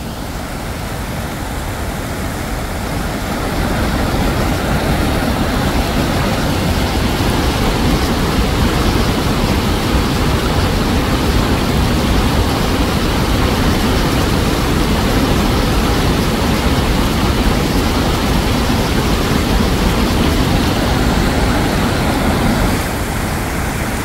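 Waterfall and rapids: a steady rushing roar of white water pouring over rock ledges. It builds over the first few seconds and eases slightly near the end.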